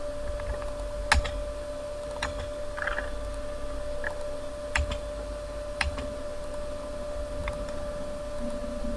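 Scattered clicks of a computer mouse and keyboard, about half a dozen sharp single clicks several seconds apart, over a steady electrical hum and hiss.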